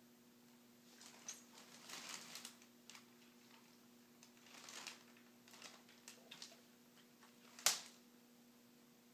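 Faint rustling and scratching in short irregular bursts as a cat rolls on a carpet and paws at a catnip toy, with a sharp click about three-quarters of the way through, over a low steady hum.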